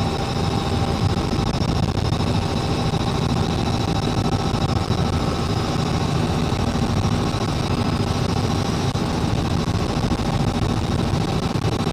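Helicopter running: a steady dense rumble with thin, steady high-pitched whines over it.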